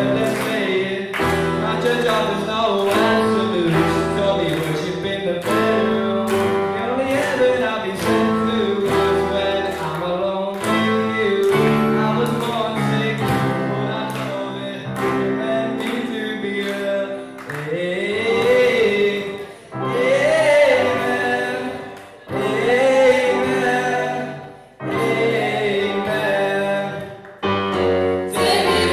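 Live cover band: a young female voice sings a slow ballad over strummed acoustic guitar. In the second half the music drops out briefly several times between phrases.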